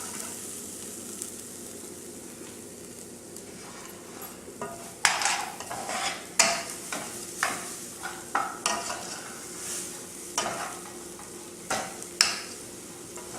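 Rice frying in butter in a pan, a steady sizzle, with a spoon scraping and stirring through the rice in a run of short strokes from about five seconds in.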